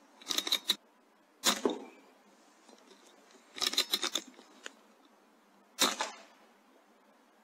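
Airmaks Krait L .22 PCP air rifle being worked and fired: a quick run of sharp mechanical clicks, then a single sharp crack about a second and a half in, another run of clicks near the middle, and a second crack near the end.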